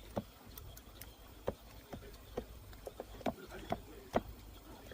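Light, irregular clicks and taps of kitchen utensils, about seven in a few seconds, while chicken wings are being prepared.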